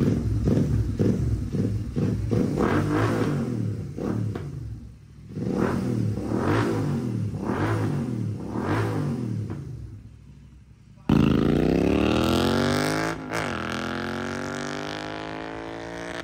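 Royal Enfield Continental GT 650's parallel-twin engine with a Red Rooster Performance slip-on exhaust, revved in a series of blips for about ten seconds. Then it abruptly changes to the bike accelerating, its engine pitch climbing steadily, with one brief break in the climb like an upshift.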